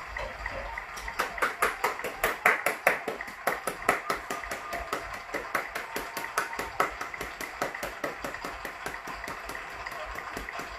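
Several people clapping their hands in a steady rhythm, about four claps a second, loudest between about one and four seconds in, heard through a television's speaker.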